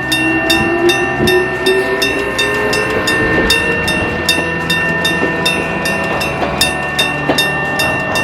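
Electric bell of a 1966 Sankosha level-crossing alarm ringing in rapid, even strokes, with a steady ring. Under it a Jōmō Electric Railway 700-series electric train passes, its whine rising over the first few seconds, with a few wheel knocks.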